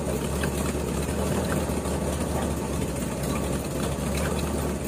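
Ford F-350 truck engine idling steadily on a cold start, still warming up, with the water pump a little noisy.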